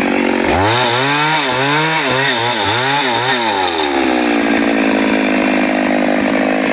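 Chainsaw engine running at high revs. About half a second in its pitch drops and wavers up and down several times for some three seconds, as the chain loads and unloads in a cut, then it steadies.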